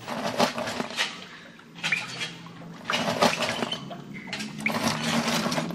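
Earth being dug and shifted in a tunnel: about four scraping, pouring rushes of soil, roughly a second and a half apart, over a faint steady low hum.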